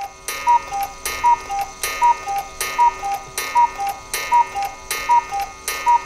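Black Forest one-day cuckoo clock calling the hour: the bird's two-note cuckoo from its bellows pipes, a higher note then a lower one, repeated about every 0.8 s, about eight calls, each with a clack of the mechanism.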